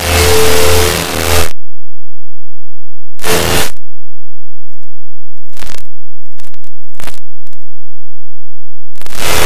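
Harsh, clipped digital noise like loud static. It is full for about the first second and a half, then cuts out, broken by a short burst of noise and a few brief crackles, and comes back full near the end.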